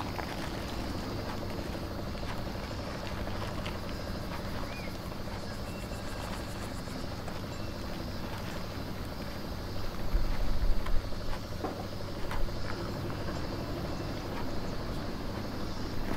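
A steady machine hum runs throughout, over light rustling and crinkling of paper burger wrappers being handled. A louder burst of low bumps and rumble comes about ten seconds in.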